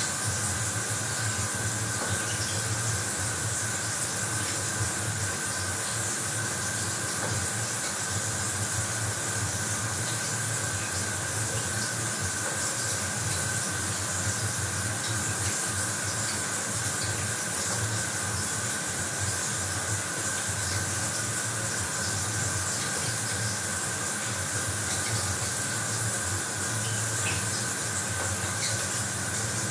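Bathroom shower running: a steady, even hiss of water spraying, with a faint steady hum under it.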